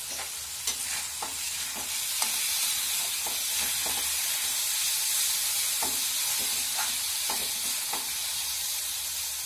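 Lentils and onions sizzling in a metal kadai while a spoon stirs them, with irregular scrapes and taps of the spoon against the pan over a steady frying hiss.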